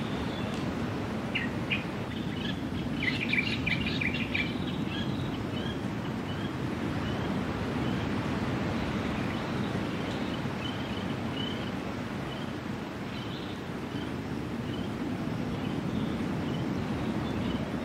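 Steady low rush of the sea along a rocky shore, with small birds chirping over it: a quick flurry of chirps about two to four seconds in, then scattered single chirps.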